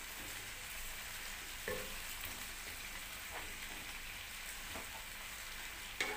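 Cabbage, zucchini and red bell peppers sizzling in a stainless steel frying pan as they are stirred with a wooden spatula, a steady hiss with a few knocks of the spatula against the pan.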